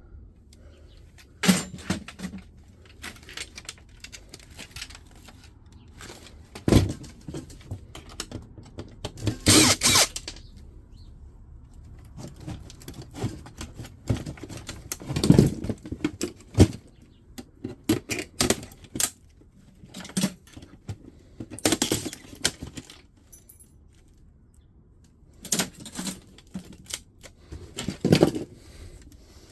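Fax machine parts being pulled apart and handled: irregular clacks, clicks and rattles of plastic and metal, with a few louder knocks.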